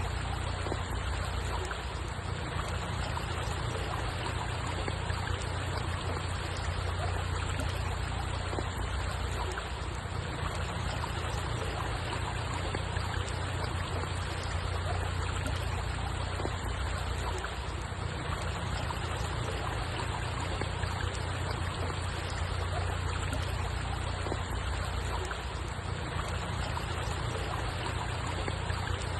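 Steady running water, a stream trickling without a break, over a low steady rumble.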